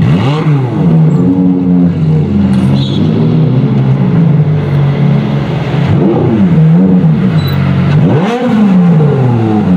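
Ferrari F430 V8 engines idling at walking pace with short throttle blips. The revs rise and fall sharply about half a second in, then several more times in quick succession near the end.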